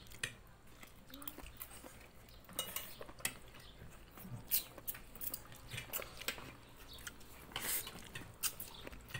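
Eating noises from a plate of rice and noodles: scattered light clicks and taps of food being picked up off the plate and eaten, a little louder around the middle and again near the end.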